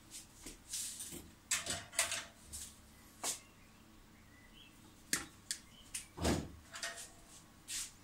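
Hands handling and twisting insulated wires on a laser-cutter control panel: irregular small clicks, taps and rustles, with a duller knock about six seconds in.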